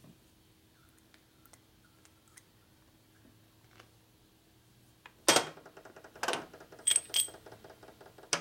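Small metal engine parts handled on a steel workbench: faint ticks at first, then, about five seconds in, several sharp metallic clinks, each with a brief ring, as parts are set down on the bench.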